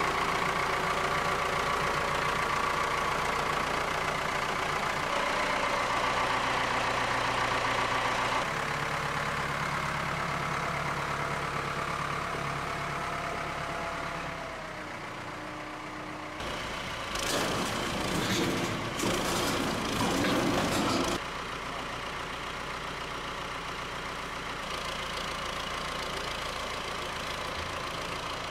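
Ford 6810 tractor's diesel engine running steadily as it carries a tank on its front loader, its pitch shifting a couple of times. About halfway through, a loud rough rattling noise lasts several seconds before the steady engine sound returns.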